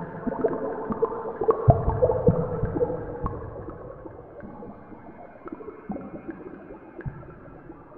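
Abstract electronic music: several held, wavering tones with scattered sharp clicks, growing quieter after about three seconds.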